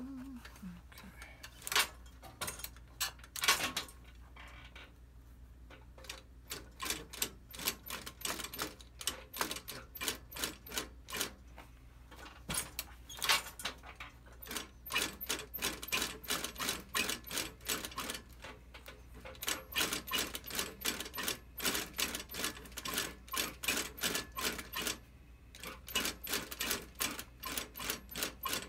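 Industrial sewing machine stitching a leather shoe's toe-cap seam, each stitch a sharp click. A couple of single stitches in the first few seconds, then slow runs of about three stitches a second broken by short pauses.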